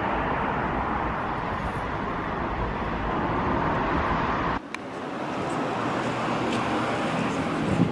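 Road traffic noise: a steady rushing sound of cars on a street. It drops off abruptly a little past halfway and then builds back up.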